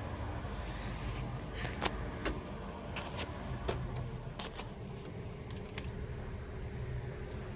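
Several sharp clicks and light knocks scattered over a few seconds, over a steady low rumble.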